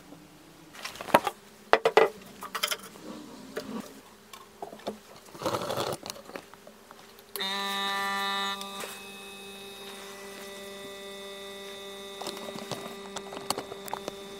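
Handling clicks and knocks from the resin-filled glass beaker being set in place, then a refrigerator compressor used as a vacuum pump switches on with a steady electric hum. It is louder for about the first second, then settles lower as the vacuum is slowly raised on the chamber.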